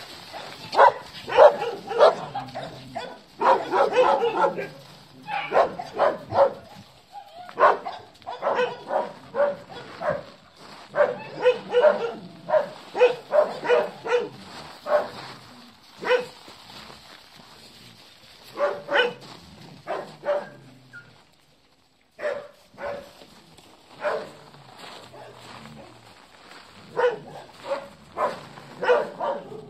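Dogs barking in quick bursts during rough play, with short yips mixed in. There is a brief break a little after two-thirds of the way through.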